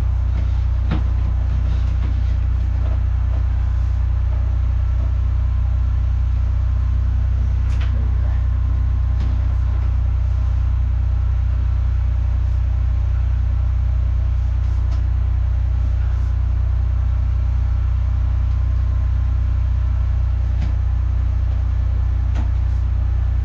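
Engine of a high-pressure drain jetter running steadily: a loud, low drone with a regular pulsing, and a few faint clicks over it.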